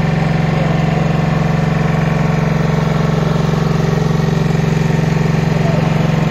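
An engine running steadily at idle close by, an even low hum with a fast regular pulse that does not change.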